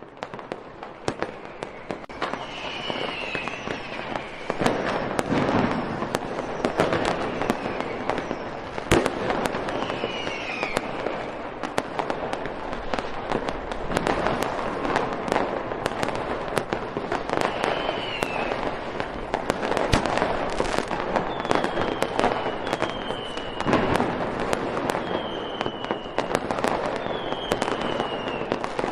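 Fireworks going off in a continuous barrage of sharp bangs and crackling pops, growing louder a few seconds in. Short whistles cut through several times, and near the end they fall in pitch.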